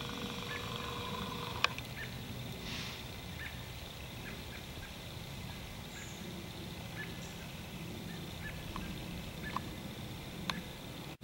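Outdoor woodland background with scattered short, sharp bird calls over a steady hiss. A brief hum in the first couple of seconds ends in a click.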